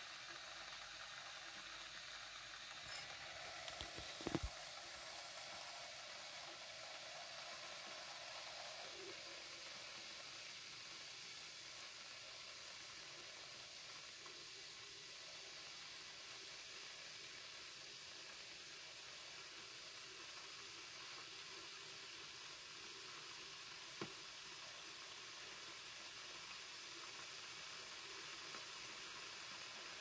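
Glass electric kettle heating water from melted ice, not yet at a rolling boil: a faint, steady hiss and sizzle. A sharp click about four seconds in, and a fainter one later.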